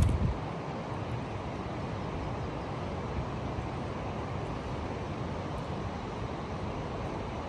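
Steady rush of a flowing river. A low wind rumble on the microphone dies away just as it begins.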